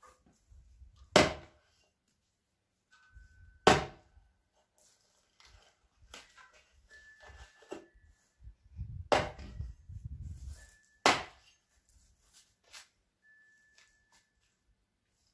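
Axe chopping a piece of lightered, the resin-rich heartwood of a pine, on the ground. The strikes are sharp and come one to three seconds apart: four loud chops, with a few lighter knocks between them.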